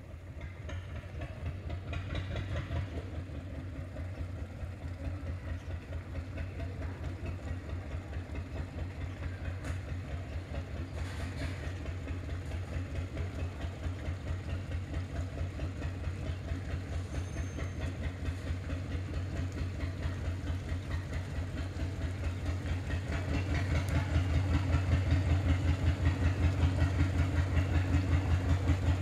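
Thai wooden fishing boat's inboard diesel engine chugging with a rapid, even low beat as the boat approaches, growing steadily louder and then louder again near the end.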